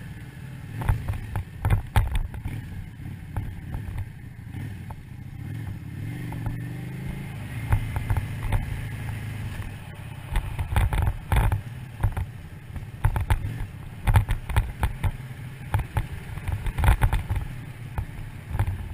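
Yamaha DragStar 650 V-twin engine running while the motorcycle is ridden, its note rising for a couple of seconds in the middle. Frequent gusts of wind buffet the microphone throughout.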